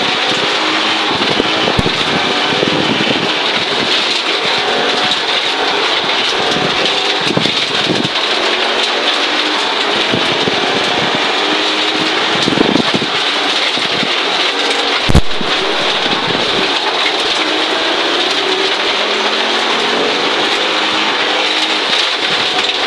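Onboard sound of a 1983 Audi Quattro Group B rally car at speed on gravel: the turbocharged five-cylinder engine's note rises and falls through the gears over a constant rush of gravel and stones hitting the underside. A single sharp knock about two-thirds of the way through is the loudest moment.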